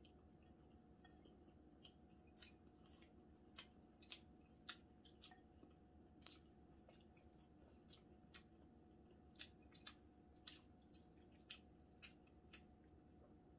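Quiet eating of cold buckwheat noodles with chopsticks from a ceramic bowl: soft chewing and scattered sharp clicks at irregular intervals, over a faint steady hum.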